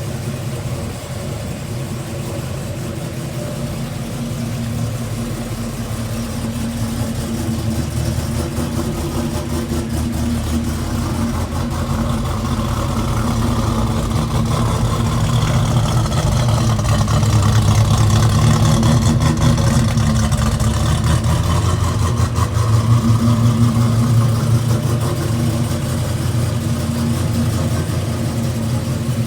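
1971 Plymouth Duster's 360 Mopar small-block V8 idling steadily. It grows louder through the middle and eases back near the end.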